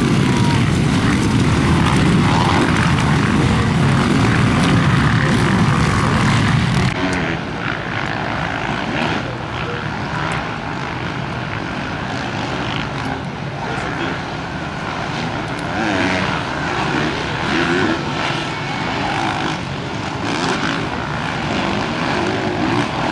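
A pack of motocross bikes' engines running hard close by as they climb a hill. About seven seconds in it cuts to quieter, distant motocross engines whose revs rise and fall as the riders lap the track.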